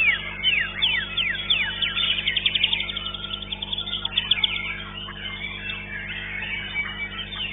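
White-rumped shama (murai batu) singing: a fast run of falling whistles and dense trills, over a steady low hum.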